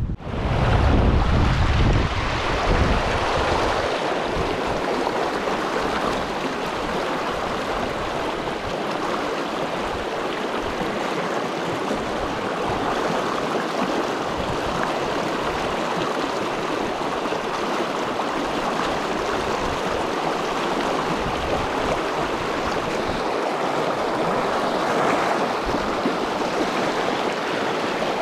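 Shallow river riffle rushing steadily. Wind buffets the microphone with a low rumble for the first few seconds.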